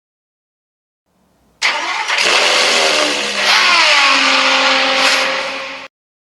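Car engine starting with a sudden loud catch, revving up with a rising pitch, then settling to a steady running note that eases off slightly and cuts off abruptly near the end.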